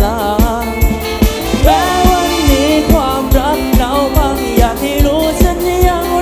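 Live stage-show band music with a sung melody over a steady, heavy bass drum beat and ticking hi-hat.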